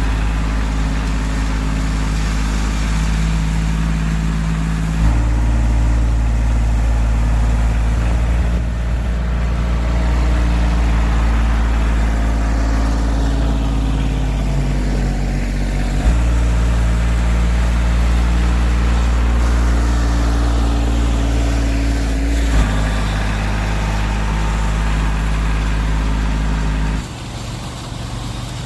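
30 hp Kubota compact tractor's diesel engine running under load while pulling a landscape rake over gravel. Its pitch steps up or down a few times with short knocks, and near the end it drops to a quieter, lower idle.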